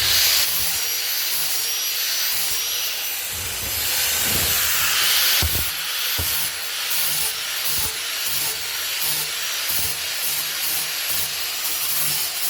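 Flap disc on a power tool sanding an oak slab: a steady high motor whine over a gritty hiss, which grows heavier for a couple of seconds near the middle as the disc bites harder. The sanding is leaving swirl marks in the oak.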